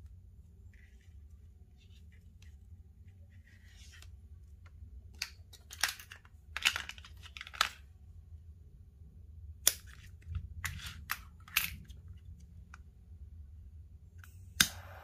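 Scissors snipping paracord several times in a row. Near the end comes a single sharp click as a jet torch lighter is fired, and its flame starts to hiss.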